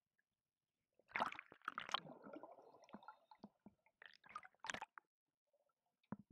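Water gurgling and sloshing heard from an underwater camera: a loud burst about a second in that trails off over the next second or two, then two shorter bursts around four to five seconds in, with scattered faint clicks.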